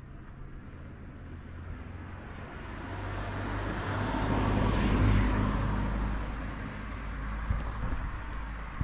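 A car passing close by: engine rumble and tyre noise swell to a peak about halfway through, then fade away.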